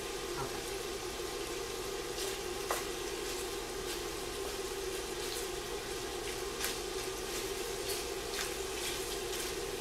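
Chopped smoked bacon sizzling as it starts to render its fat in a pot over medium-high heat, with a spoon stirring and scraping through the pieces and scattered sharp pops and clicks. A steady hum from the induction cooktop runs underneath.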